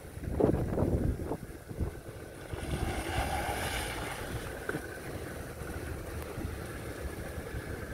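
Wind gusting on the microphone over the low rumble of a Jeep Patriot engine as the 4x4 crawls slowly down a rocky step.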